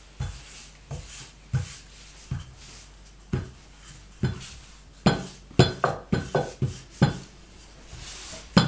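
Wooden rolling pin rolling out puff pastry dough on an oilcloth-covered table, with a series of knocks as the pin is pressed and worked back and forth. The knocks come about once a second at first, then several a second from about halfway.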